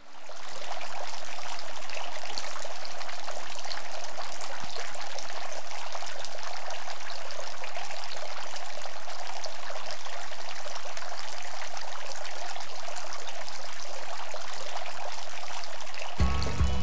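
Water pouring and splashing steadily, fading in at the start. Music comes in near the end.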